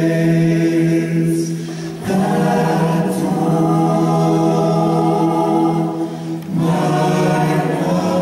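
Gospel choir of men and women singing together, holding long chords that change about two seconds in and again about six and a half seconds in.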